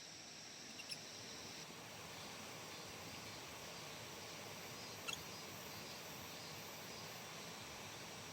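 Faint outdoor background noise. A steady high insect trill stops after about a second and a half, and two brief high chirps come, one about a second in and one about five seconds in.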